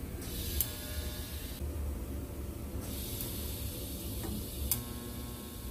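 MIG welder tack-welding a steel gusset to a roll cage tube: two bursts of sizzling arc buzz, the first short, the second a little longer starting about three seconds in.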